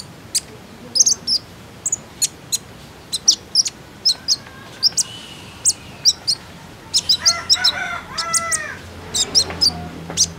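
Caged kolibri ninja (van Hasselt's sunbird) chirping: many short, sharp, high notes in quick irregular runs. A lower call from another bird comes in about seven seconds in.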